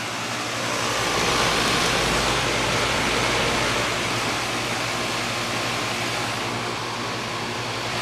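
2005 Lennox 2.5-ton central air-conditioner condenser running: the outdoor fan rushes air and the Copeland scroll compressor gives a steady low hum. The rush of air grows louder about a second in and then holds steady. The unit is decently quiet.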